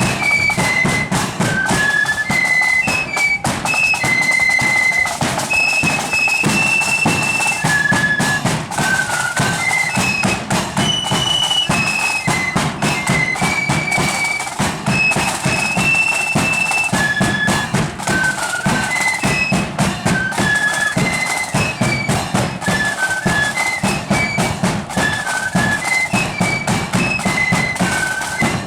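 Marching flute band playing a tune: a high flute melody in unison over snare and bass drums. The music stops near the end.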